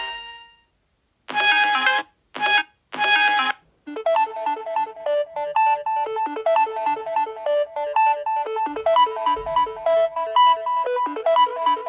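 Samsung Galaxy A20e ringtones playing one after another. A tone fades out at the start. After a short gap come three short chords, and from about four seconds in a quick, repeating melody of short notes.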